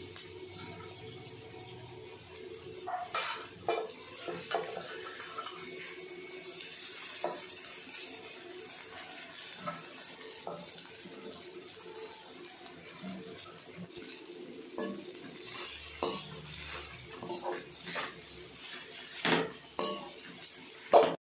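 Slotted metal spatula scraping and knocking against a metal frying pan while sevai is tossed into the fried onion tempering: scattered clinks and scrapes over a steady low hum, with a sharp knock near the end.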